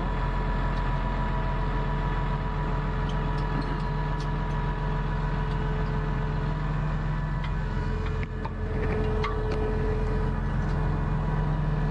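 Tractor engine idling steadily, with a few light clicks and knocks of metal as a seed-drill row marker is folded up by hand.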